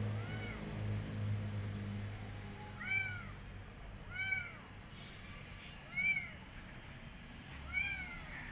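A kitten meowing repeatedly: five short, high-pitched meows, each rising and then falling in pitch, spaced one to two seconds apart.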